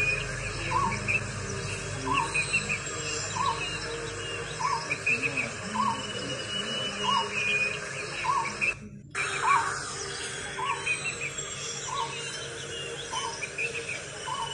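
Forest birds calling: a short call repeats roughly once a second, with higher chirps over it and a steady insect background. The sound cuts out for an instant about nine seconds in.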